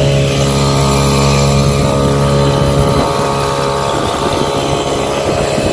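Motorboat engine running steadily and loud, an even droning note with its overtones. About three seconds in, its deepest tone drops away while the higher drone carries on.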